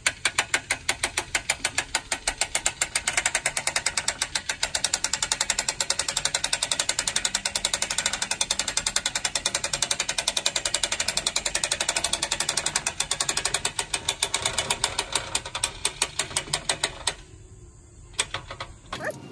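Hand-cranked ratchet on a homemade mobile antenna tower clicking steadily, about four clicks a second, as the crank is turned to lower the tower. The clicking stops near the end, with one more click after.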